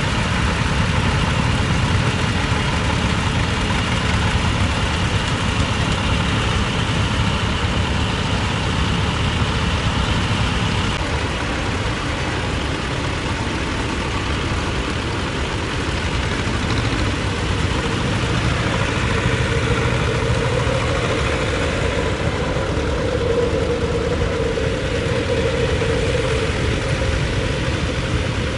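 Engines of small vintage farm tractors running steadily as they pull plows through a field, the engine note shifting about eleven seconds in.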